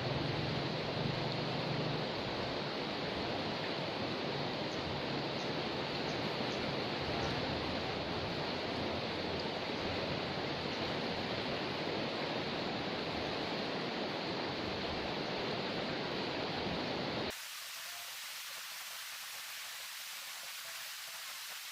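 Steady rushing of a river swollen after a flood. Near the end it changes suddenly to a quieter, thinner hiss.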